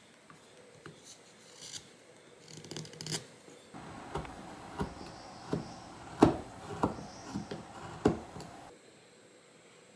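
Hand chisel paring thin chips off a small carved wooden figure: faint scraping at first, then about seven crisp cuts over four seconds, the loudest near the middle.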